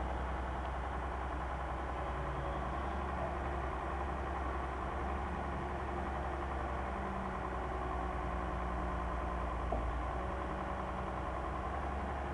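Komatsu tracked excavator's diesel engine running steadily while the boom, arm and bucket are worked, with a single small click a little under ten seconds in.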